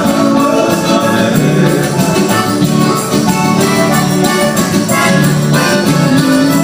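A band playing music, loud and steady, with many instruments sounding together.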